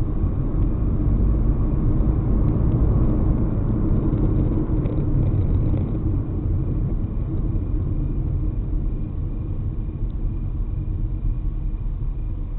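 Car being driven on city roads: a steady low rumble of engine and tyres on the road, easing slightly about six seconds in.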